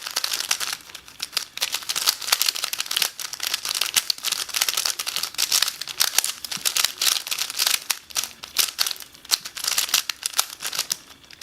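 Shengshou Aurora 2x2 speedcube turned rapidly by hand, its plastic layers clicking and clacking in quick, continuous runs.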